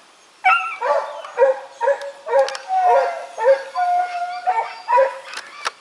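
Beagle hounds baying: short, pitched barks about two a second, with a longer drawn-out bay about two-thirds of the way through. The sound cuts off abruptly at the end.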